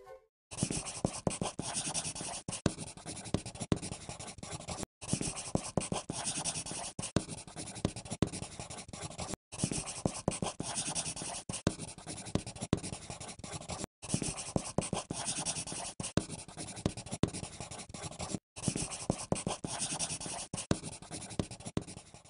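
Pen scratching on paper in quick, continuous writing strokes, breaking off for a moment about every four and a half seconds and starting again.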